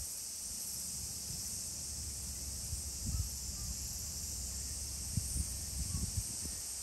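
A steady high-pitched insect chorus, with a few soft low thumps scattered through it.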